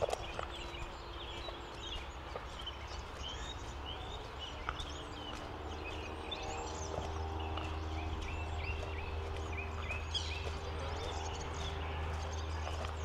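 Small birds chirping and calling over and over, with occasional footsteps. From about five seconds in, a low steady hum with a droning tone joins and runs on.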